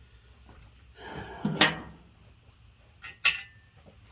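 Parts and tools being handled on a workbench: a rustle ending in a sharp clack about a second and a half in, then a metallic clink with a brief ring about three seconds in.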